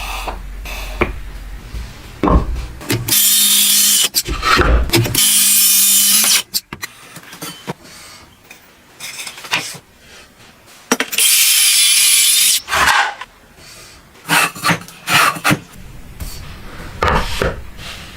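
Wood being sawn: two long, loud cuts, one about three seconds in and one about eleven seconds in, with shorter scraping strokes and knocks of wood between them.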